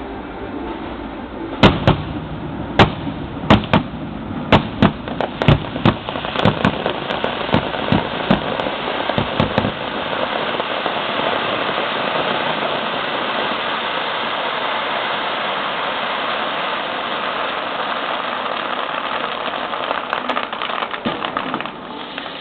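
Fireworks display: a string of sharp shell bursts, about a dozen over eight seconds, then a dense, continuous crackling that dies away near the end.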